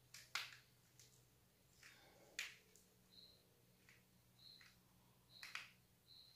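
Faint clicks and taps of small plastic parts being handled as a plug is fitted onto a cable's wires. Short high chirps recur about once a second through the second half.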